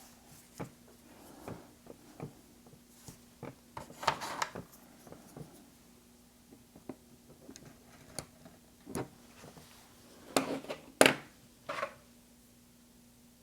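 Scattered small clicks, taps and light scraping of small tools and phone parts being handled on a work surface. They are loudest in a cluster about four seconds in and again between ten and twelve seconds in, over a faint steady hum.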